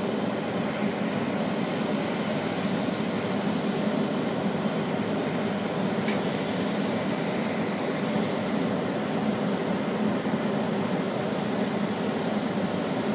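Steady background hum with a noisy hiss, unchanging throughout, and a single faint click about six seconds in.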